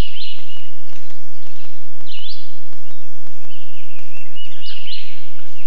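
Wild songbirds calling over a steady background hiss, with short rising chirps near the start, about two seconds in, and near the end.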